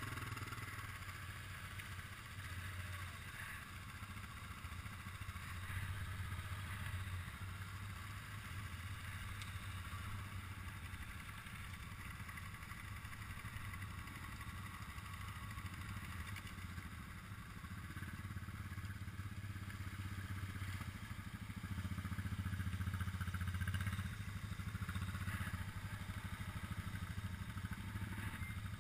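ATV engine idling with a steady low rumble that swells slightly now and then.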